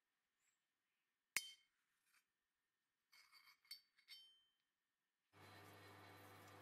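Steel clinking: one sharp clink of a steel bushing against a square steel tube, then a few lighter clinks and knocks as it is handled. Near the end a drill press's steady running hum comes in.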